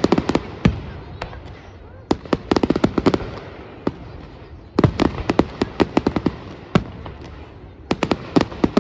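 Fireworks display: aerial shells bursting in clusters of rapid sharp bangs and crackles, a group every two to three seconds with a few single louder bangs between.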